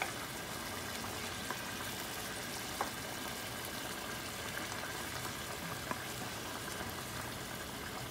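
Salted fish cooking in oil and water in a metal pan, a steady sizzling and bubbling, while a wooden spoon stirs it. A few short clicks stand out now and then.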